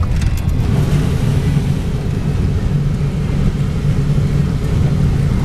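Car driving slowly on a dirt road, heard from inside the cabin: a steady low rumble of engine and tyres on the unpaved surface.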